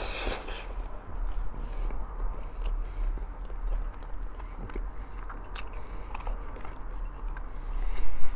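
A person chewing and biting food close to the microphone, with scattered small mouth clicks. There is a brief noisy burst right at the start and a louder one near the end.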